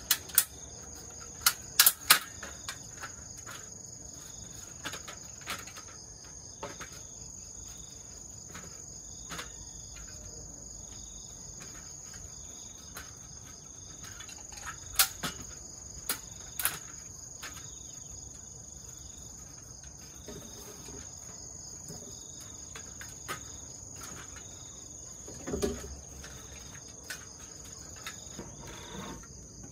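Aluminium step ladder clanking as it is unfolded, stood up and moved: a cluster of sharp metallic knocks in the first two seconds, a few more about halfway, and a duller thump near the end. Under it, insects buzz steadily in a high pitch.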